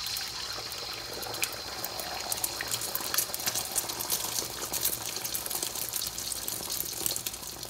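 Beaten egg poured into hot oil in a wok, sizzling steadily with many small crackling pops as it sets into a thin omelette.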